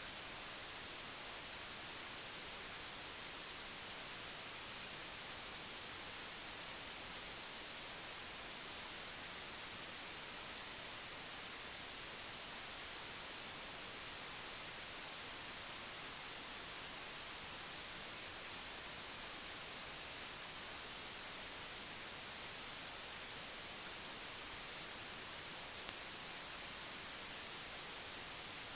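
Steady hiss of static, even and unchanging, strongest in the high end, with no other sound standing out.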